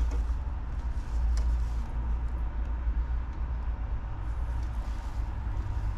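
Steady low rumble of a car's idling engine, heard inside the cabin.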